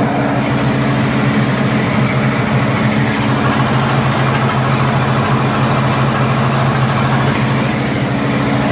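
Lincoln SA-200 engine-driven welder running steadily, its engine and generator making an even hum.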